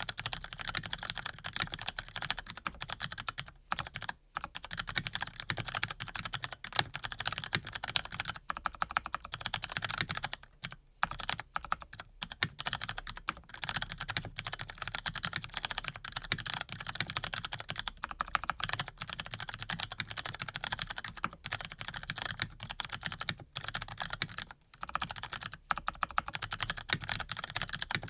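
Fast, continuous typing on a Razer BlackWidow V3 Pro mechanical keyboard with lubed Cherry RGB Brown tactile switches, a rapid stream of key clicks with a few short pauses.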